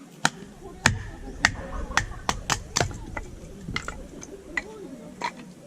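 About a dozen sharp cracks and knocks at irregular spacing, loudest in the first half and thinning out near the end.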